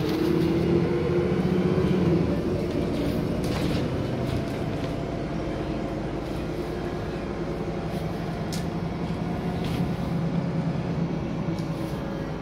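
Interior of a moving city bus: the engine drones steadily, loudest and slightly rising in pitch in the first two seconds before easing off. A few short rattles or clicks come from the cabin fittings.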